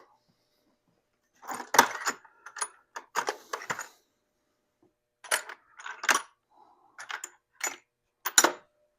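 Metal hand tools and sockets clinking and clicking in two clusters of sharp clinks, as a socket wrench is worked on bolts.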